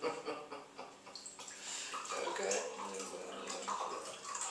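Red wine glugging from a bottle into a wine glass, starting about a second and a half in.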